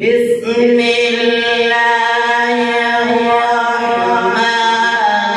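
A young man's voice reciting the Quran in Arabic in the melodic tilawat style, drawing out one long phrase on a steady pitch with a small turn in pitch about four seconds in.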